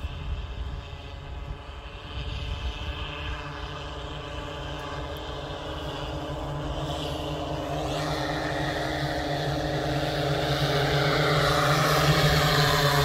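Multirotor agricultural spraying drone's propellers and motors humming with a steady pitch, growing gradually louder as it flies in low over the field, loudest near the end.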